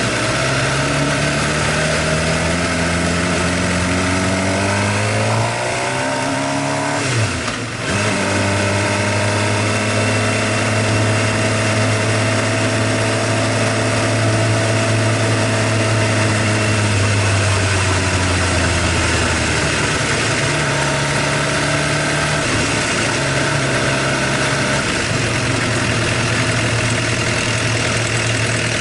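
Suzuki GSX-R750 inline-four engine running with the abnormal mechanical noise that the owner takes for loud tappet (valve clearance) noise. The engine is slowly revved up over the first several seconds, dips briefly, is held at a steady higher speed, then eases back to idle with a couple of small blips of the throttle.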